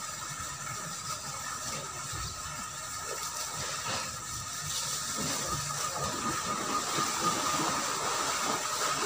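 Steady outdoor hiss with a few steady high tones running through it, growing a little louder and busier over the last few seconds.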